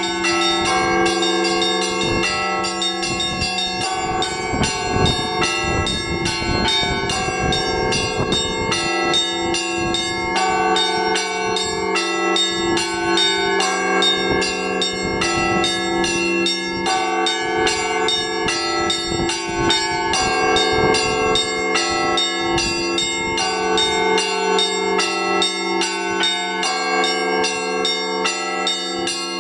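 Russian Orthodox church bells rung by hand from ropes in the Rostov style: rapid, rhythmic strikes of many bells at different pitches, their tones ringing on and overlapping without a break.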